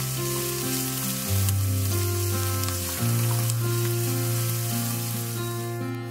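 Chopped onion and garlic sizzling in olive oil in a stainless steel pan as a wooden spatula stirs them. Slow background music with long held low notes plays over it.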